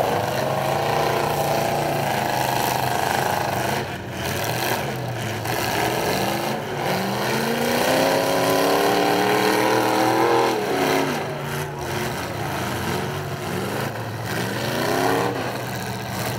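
Demolition derby car engines revving hard in about three surges, each rising in pitch and then falling away, over a steady lower engine drone.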